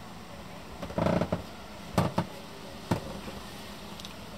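A brief scuffing rumble about a second in, then three sharp knocks: two close together, and a third a little under a second later.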